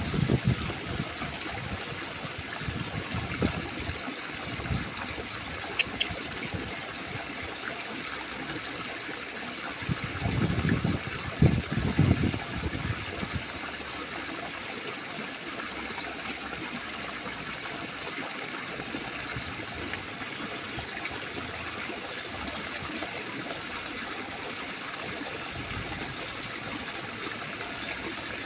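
Steady sound of running water, like a trickling stream, with a few low thumps about ten to thirteen seconds in.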